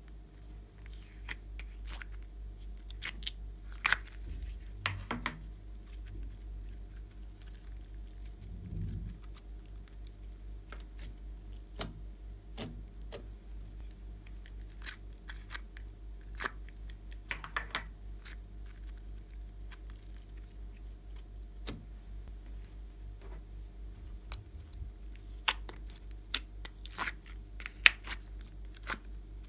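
Thick slime being worked out of thin clear plastic moulds and pressed into a glass tray: scattered sticky clicks, peeling crackles and plastic crinkles, over a steady low hum.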